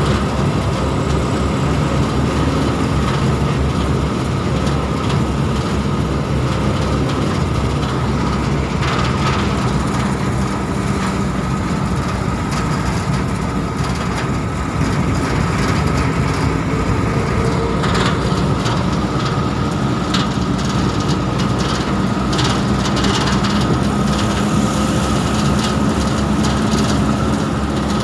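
Engine and road noise from inside the cab of a vehicle driving along a highway, a steady loud drone with air rushing in through an open window. Short rattling clicks come in now and then in the second half.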